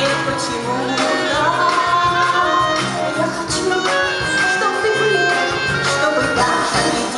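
Live small band playing the instrumental introduction of an upbeat retro Soviet pop song: drum kit keeping a steady beat under bass, guitar and accordion, with a melody line on top.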